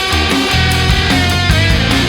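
Background music: loud heavy rock with distorted electric guitar and a driving bass line.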